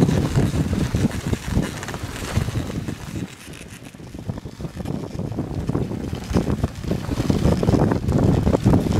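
Dog sled running over packed snow: runners hissing and scraping with an uneven crunching texture, and wind buffeting the microphone. It goes quieter for a moment about three seconds in, then builds back up.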